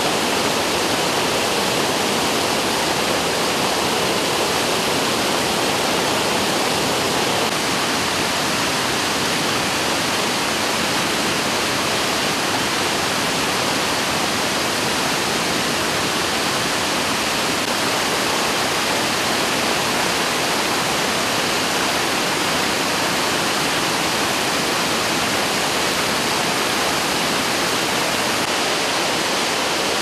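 Waterfall in full spring flow, with the river below it rushing over rocks: a steady, loud rush of water.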